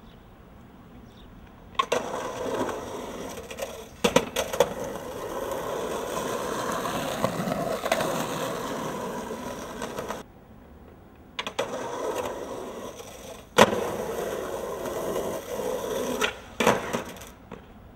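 Skateboard wheels rolling on asphalt, broken by several sharp clacks of the board striking the ground. The sound cuts out for about a second near the middle.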